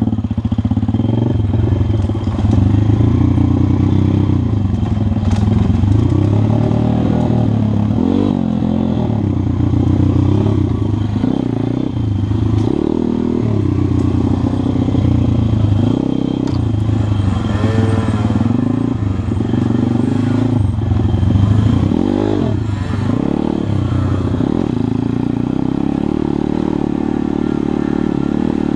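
MRF 140 RC pit bike's 140 cc single-cylinder four-stroke engine running under way on a dirt trail, its pitch rising and falling again and again as the throttle is opened and closed.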